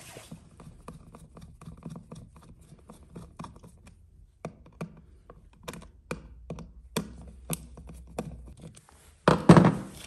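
Screwdriver clicking and tapping as screws are driven into a black plastic electrical box, with plastic and wire handling noises, then a louder double thud of the box being handled near the end.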